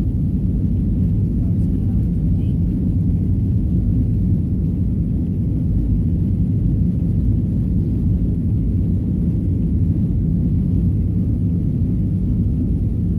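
Steady low rumble inside the cabin of a Boeing 737-900ER as it taxis, with the engines and rolling wheels blending into an even drone.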